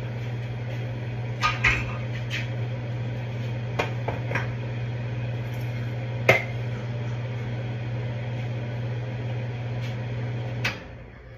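Range hood exhaust fan running with a steady low hum, over a few light clinks of a metal spoon against pots and dishes. Near the end a click and the fan hum cuts off as the hood is switched off.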